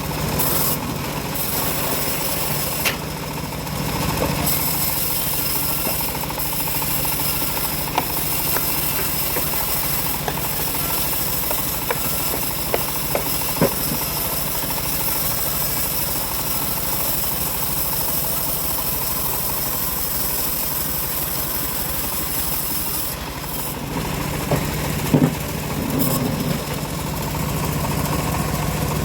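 Homemade bandsaw mill running with a steady mechanical drone, with a few short sharp clicks scattered through.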